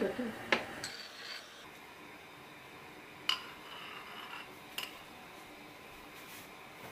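Metal ladle clinking against a ceramic pot a few times while foam is skimmed off the simmering broth, the loudest clink a little past the middle, with a faint simmer between the clinks.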